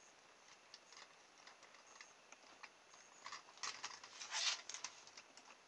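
Faint clicks and rustling as hands fit a small plastic propeller onto an electric motor, with a brief cluster of louder scraping clicks between about three and five seconds in.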